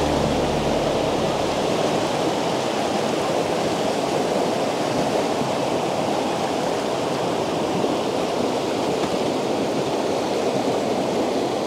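Rushing white water of river rapids, a steady hiss around the boat. A low hum fades out in the first second or two.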